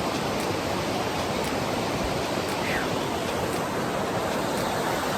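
Steady rush of a fast-flowing creek, an even unbroken noise, with a faint short falling chirp near the middle.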